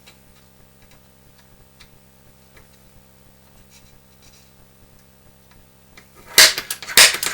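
Scattered faint clicks of hand work at a workbench, then about six seconds in a loud run of sharp clattering as hand tools are handled and set down on the bench.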